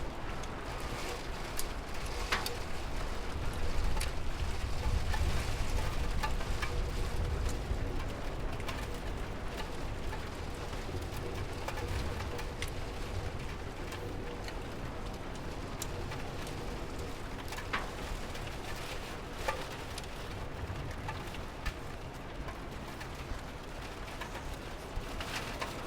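Steady rain falling, with a low rumble underneath and scattered sharp drip ticks.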